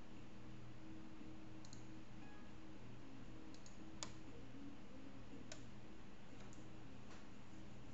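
Faint room tone: a low steady electrical hum and hiss, with a few scattered light clicks, the sharpest about four seconds in.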